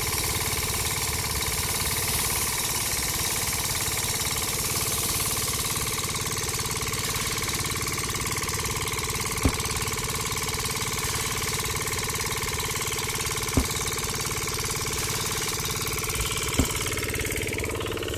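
Small motor of a miniature model machine running steadily with a low rattle and a whine. Three short sharp clicks come in its second half.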